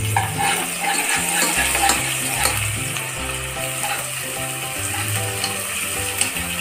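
Sliced onions, green chillies and freshly added ginger-garlic paste sizzling in hot oil in a non-stick pot, stirred with a steel spatula that scrapes and clicks against the pan, most busily in the first three seconds. The onions have just browned, and this is the paste frying in.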